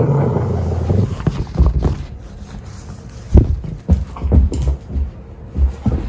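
Treeing walker coonhound growling for about a second while it worries a plush rope toy, then a run of dull thuds from its paws and the toy on the carpeted floor as it leaps and dashes about.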